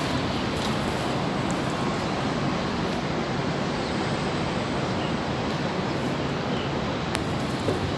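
Steady rushing outdoor noise high above a city: wind on the microphone blended with the distant hum of traffic below.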